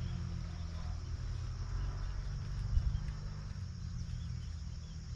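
Outdoor ambience: a steady low rumble with faint insect and bird chirps, and one brief thump about halfway through.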